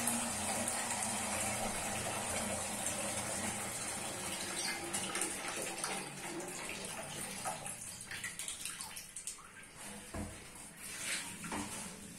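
Kitchen tap running into a steel pot, filling it with water. The flow fades after about five or six seconds, followed by a few light knocks.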